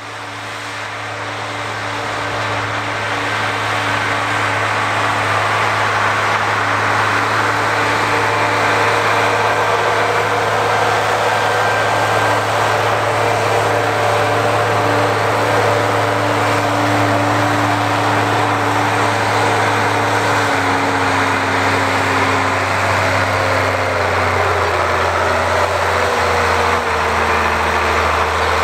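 Ford 9700 tractor's turbocharged six-cylinder diesel running steadily under load, pulling a five-bottom moldboard plow through the ground. The engine sound fades in over the first few seconds, and its note steps lower about two-thirds of the way through.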